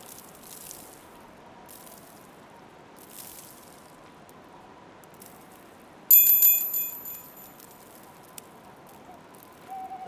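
A bell-like chime rings once about six seconds in, bright and metallic, and fades over about a second as the countdown timer starts. Under it runs a soft snowy-park ambience with a few crunching footsteps in snow early on, and a short owl hoot near the end.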